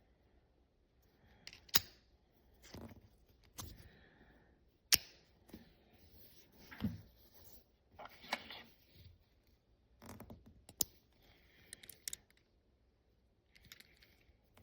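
Small hard objects being handled close up: a series of sharp clicks, with short rustling and scraping sounds in between.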